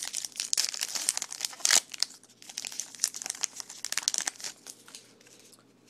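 Wrapper of a foil trading-card pack crinkling and crackling as it is handled, stopping about five seconds in.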